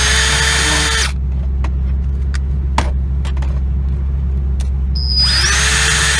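Dremel rotary tool cutting dashboard plastic with a high whine. It stops about a second in; a few light clicks follow, and it spins up again about five seconds in and runs on.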